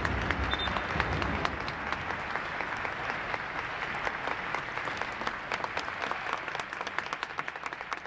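Stadium crowd clapping, with no cheering or chanting, the dense applause thinning out toward the end into separate claps.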